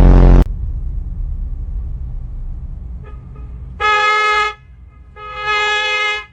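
A very loud, short blast right at the start, then a horn sounding twice in steady held toots, the second longer.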